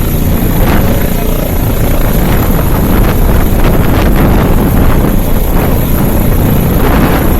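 Helicopter running in flight: a loud, steady engine and rotor noise.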